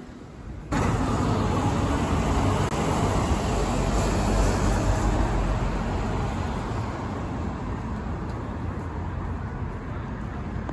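A quiet street hum gives way abruptly, under a second in, to loud road traffic: cars and heavy vehicles driving past with a deep engine rumble that swells about four seconds in and then eases slightly.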